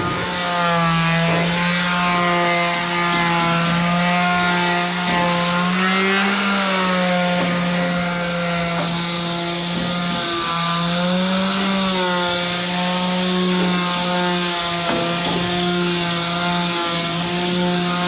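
Handheld electric power tool running continuously under load, with a steady motor whine and a hiss of cutting or grinding. Its pitch lifts briefly twice, about a third of the way in and again past the middle, as the load eases.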